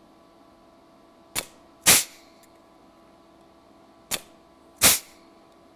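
Eastwood pneumatic flange and punch tool punching holes through sheet steel for plug welds, twice: each time a light click and, about half a second later, a louder short sharp snap.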